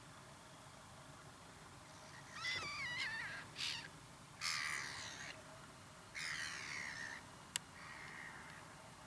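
Harsh, rasping bird calls: a wavering call about two seconds in, a short one, then two longer calls of about a second each and a fainter one, with a single sharp click near the end.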